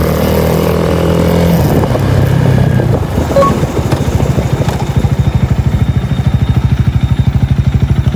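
Honda Rebel 250's single-cylinder engine running loud through an Over Racing SS megaphone muffler. It holds steady revs at first, then the revs drop about three seconds in and it settles into a slow, even beat of exhaust pulses, about ten a second.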